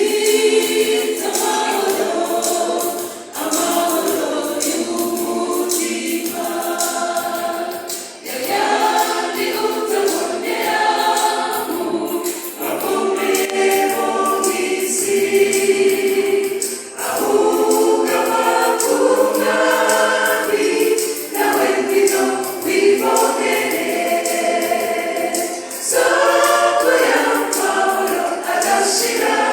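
A gospel choir singing in harmony, many voices together, in phrases of a few seconds each with short breaths between them.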